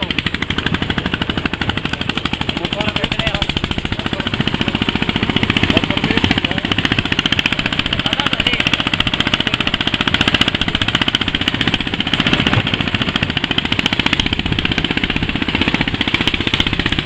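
Başak 17 small tractor's engine running as the tractor drives along a rough dirt track, a fast, steady chugging beat.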